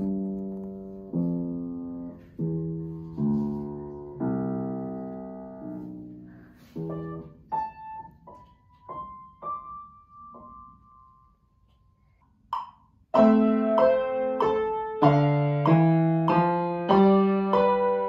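Upright piano being played: slow low chords, each left to ring and fade, then a few higher single notes dying away. After a short pause about two-thirds of the way in, a louder, quicker piece begins, at about two notes a second.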